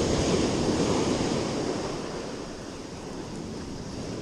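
Surf breaking and washing up a sandy beach, with wind buffeting the microphone. The wash is loudest in the first second or so, then eases off.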